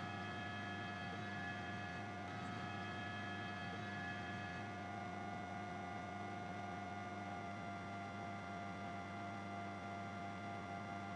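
A steady hum made of many held tones at once. A few of the higher tones drop out about halfway through.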